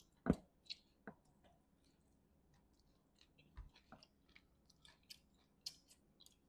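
A person eating chicken curry by hand: close-up chewing and wet mouth clicks, scattered and irregular, with a single louder thump about a third of a second in.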